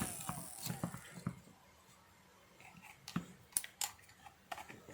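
Scattered light plastic clicks and handling knocks as a hair trimmer's switch cover and plastic casing are fitted and snapped into place. The trimmer motor's falling whine dies away at the very start.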